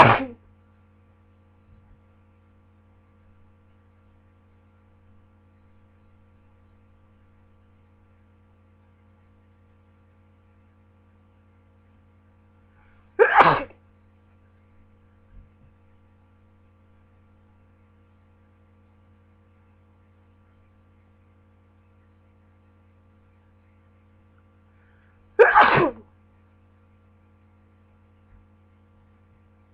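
A person sneezing from a head cold, three separate loud sneezes about twelve seconds apart, over a faint steady electrical hum.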